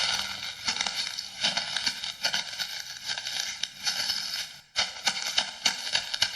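Sound-effect recording of footsteps, a steady run of sharp steps about two to three a second with a brief pause about three quarters through. It is the plain, dry version before any 3D panning.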